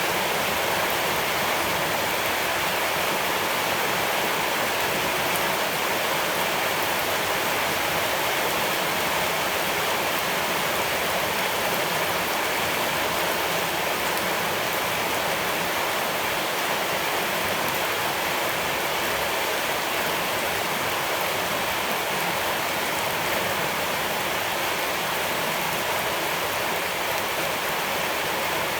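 Steady rushing of flowing water, even and unbroken throughout.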